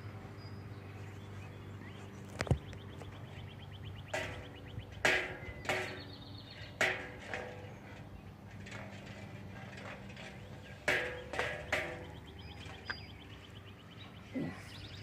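Backyard songbirds chirping and calling in short, loud, irregular bursts, with rapid trills twice, over a steady low hum. A single sharp click sounds about two and a half seconds in.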